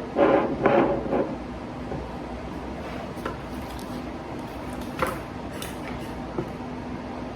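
A few light clicks and knocks, like dishes and utensils being handled, over a steady low hum, after a short voice sound at the start.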